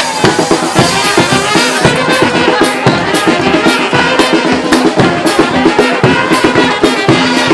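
Street marching band of brass and drums playing a hora, horns over a steady, fast drum beat.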